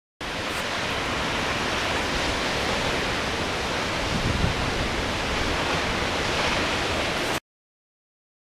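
Steady rushing roar of a tall waterfall, cutting in and out abruptly.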